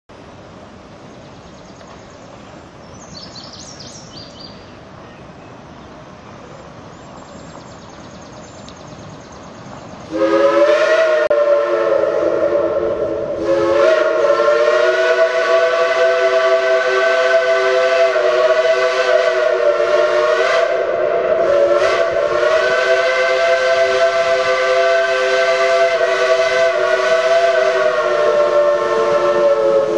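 Geared steam locomotive's whistle blowing several notes at once: a short blast about ten seconds in, a brief break, then one long held blast to the end. Before the whistle there is only a faint steady noise of the train working.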